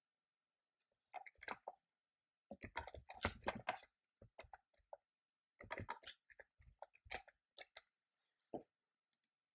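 Computer keyboard typing in short irregular bursts of key clicks, with pauses between them.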